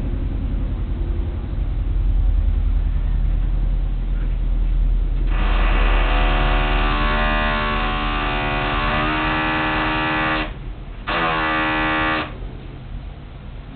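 Construction noise from apartment building repair work: a steady low rumble, with a motor-driven power tool whining on for about five seconds, stopping briefly, then running again for about a second.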